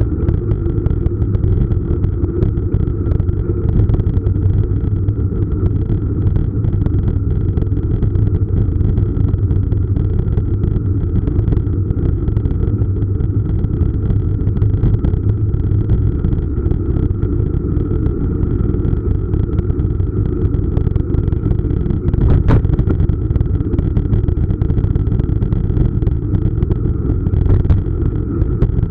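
Steady low rumble of wind and road vibration on a bicycle-mounted camera's microphone while a mountain bike rolls over asphalt, with a faint steady whine and frequent small rattling clicks. There is a sharper knock about two-thirds of the way through.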